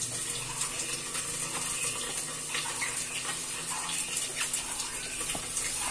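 A steady hiss, with a few faint squelching clicks from hands kneading raw minced meat with onion, breadcrumbs and spices in a plastic bowl.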